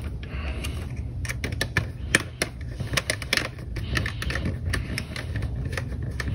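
Irregular small clicks and taps of a hex driver working M3x12 screws into 3D-printed plastic corner brackets on an acrylic panel, thickest in the first half.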